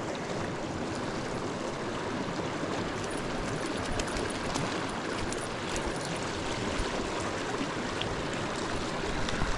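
Small rocky mountain creek flowing over a shallow riffle: a steady rush of water.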